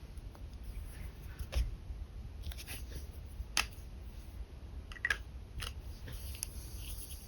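Pen drawing on paper: scattered short scratchy strokes and a few sharp ticks of the pen against the page.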